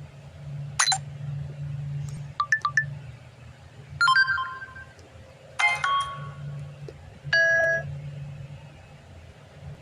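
Samsung phone notification tones playing one after another: five short electronic chimes and blips, each a second or so apart, the last a held tone, over a low steady hum.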